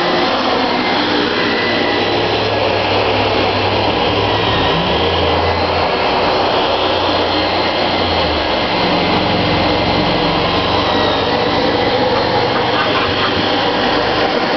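Dyson ball upright vacuum cleaner running steadily as it is pushed back and forth over carpet, its low hum shifting in pitch a few times in the middle.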